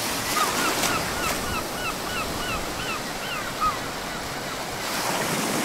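Steady wash of bay waves with wind. Over it a bird calls a quick run of about a dozen short notes, roughly three a second, which stop a little over halfway through.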